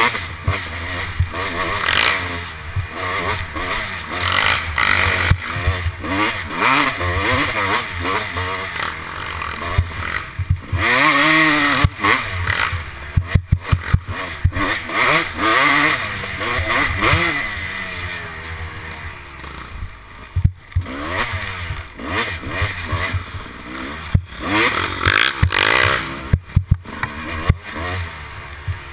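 Kawasaki dirt bike engine revving up and falling back over and over as it is ridden hard along a woods trail. Wind on a helmet-mounted microphone adds hiss, with sharp knocks from the bike jolting over bumps.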